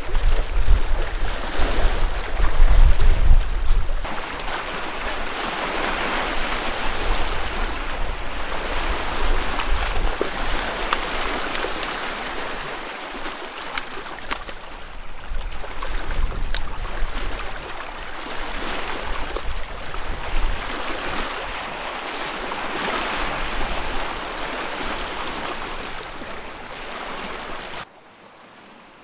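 Small waves lapping and splashing against shoreline rocks, rising and falling in slow swells, with wind buffeting the microphone as a low rumble in the first few seconds. Near the end the sound drops suddenly to a much quieter background.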